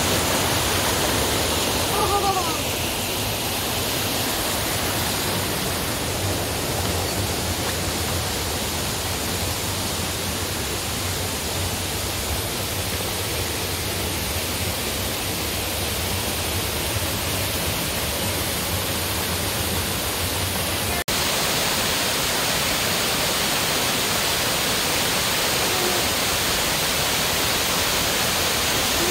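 Steady rush of a creek cascading over boulders. About two-thirds of the way through it cuts abruptly to a brighter, hissier rush of water pouring over a waterfall.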